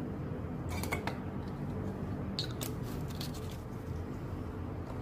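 A few light clicks and clatters of plastic measuring spoons being handled and set down on a table, about a second in and again around the middle, over a steady low background hum.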